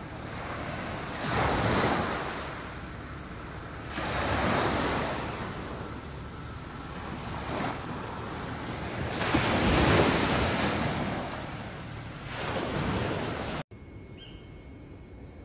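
Sea waves washing onto the shore, the surf swelling every two to three seconds, with wind buffeting the microphone. Near the end it cuts off suddenly to a quieter steady hiss.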